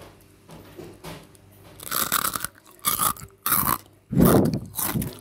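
Crisp fried kremesan (lacy tapioca-flour batter crumb) being broken and then bitten and chewed: faint crackling, then a run of loud, irregular crunches from about two seconds in, the loudest about four seconds in. The crunching shows it is very crispy.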